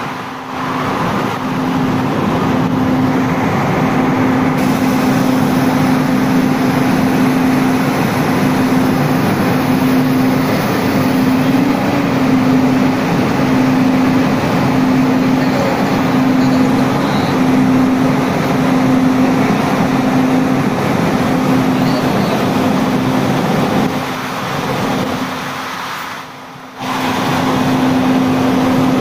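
Locomotive running as it eases up to a passenger coach for coupling: a steady loud machine noise with a hum that pulses on and off about once a second, dropping away briefly near the end.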